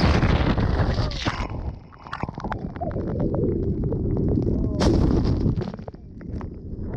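A sea blowhole in coral rock blasting water and air up through the hole in two surges, one at the start and another about five seconds in, each dying away after a second or so, with spray spattering against the camera.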